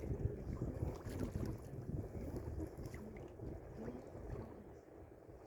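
Wind rumbling on the microphone aboard a sailboat under way, easing off toward the end.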